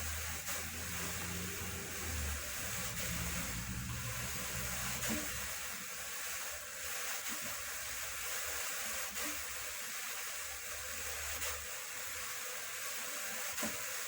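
Drum carder running as wool fleece is carded through it, making a steady whirring hiss.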